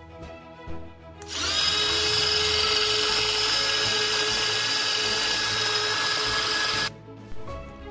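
Push-button electric mini chopper grinding coriander-curd chutney: its motor spins up quickly a little over a second in, runs with a steady high whine for about five and a half seconds while the button is held, then cuts off suddenly.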